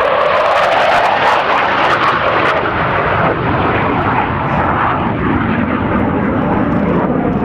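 Hawker Hunter Mk 58 jet, its Rolls-Royce Avon turbojet at full power as it flies past and pulls up into a zoom climb. A loud, even roar, strongest over the first three seconds and easing slightly after.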